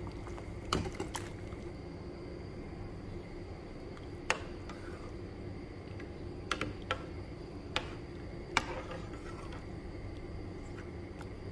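Pot of chicken broth boiling with a steady bubbling, broken by a handful of sharp clicks of metal utensils knocking against the pot as chicken pieces go in and are stirred.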